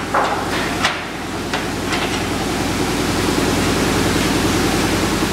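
A few sharp metal clicks and knocks, about four in the first two seconds, as the clamp on the stainless steel lid of a pressure discharge cooker is fastened, over a steady loud hiss and hum of running machinery.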